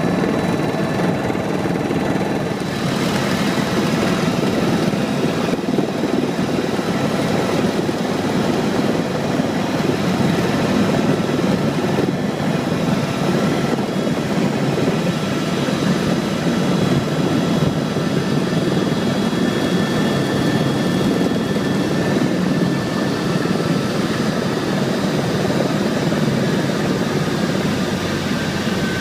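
Tour helicopter's engine and rotor noise, steady and unbroken, with a faint high whine above it.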